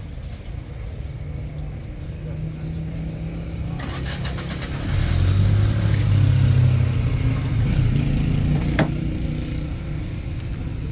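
A steady, low, engine-like motor hum that grows louder about five seconds in, with one sharp click near the end.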